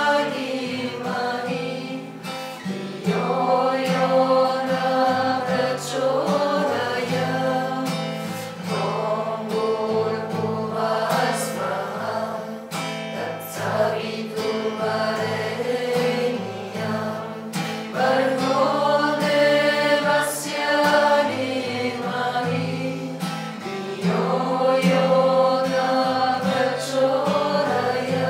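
A devotional mantra sung by a woman's voice joined by a group, over a strummed acoustic guitar, with long held notes.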